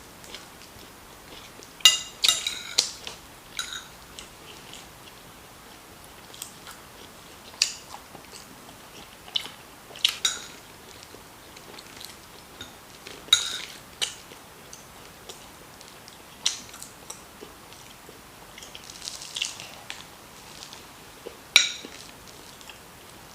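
Close-miked eating: a person chewing mouthfuls of jollof rice, with cutlery clicking and scraping on a plate now and then. The sharpest clinks come about two seconds in, near the middle and near the end.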